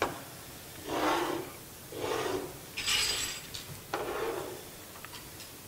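Rubbing and scraping handling noise close to the microphone, four strokes about a second apart, the third higher and hissier than the rest.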